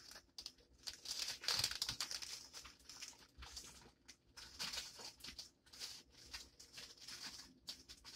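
Faint crinkling and rustling of packaging wrap being handled and folded, in irregular bursts, the strongest about one to two seconds in, as an item is stuffed back into its wrapping.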